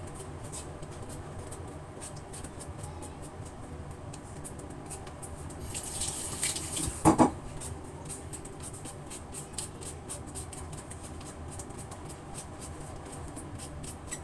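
Handheld vegetable peeler scraping the skin off a raw potato in quick repeated strokes. A brief louder rush and a short pitched sound come about halfway through.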